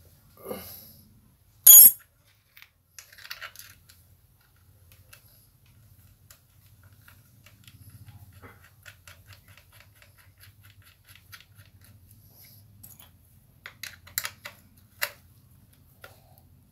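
Metal clicks and clinks of bolts, washers and a wrench against a small engine's metal mounting bracket as rubber anti-vibration mounts are fitted. There is one sharp, loud click about two seconds in, a run of faint quick ticks through the middle, and a few more clicks near the end.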